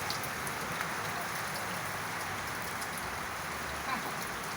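Steady rain falling and pattering on surfaces, with scattered drip ticks.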